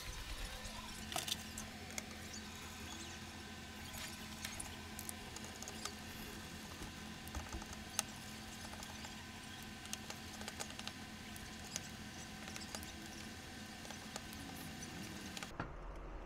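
Small scattered clicks and scratches of a Klein precision screwdriver working tiny Phillips screws out of a graphics card's metal shroud, over a faint steady hum.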